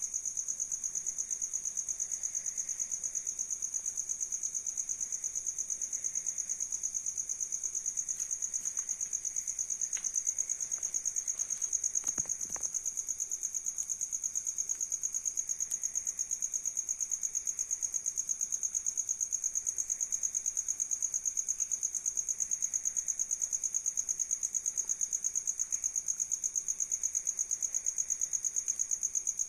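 Steady, high-pitched, rapidly pulsing insect trill that runs without a break, with a few faint knocks about ten to twelve seconds in.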